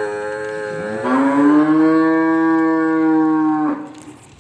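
Buffalo calf bellowing: one long, loud call that wavers in pitch at first, dips about a second in, then holds steady on one pitch and cuts off suddenly near the end.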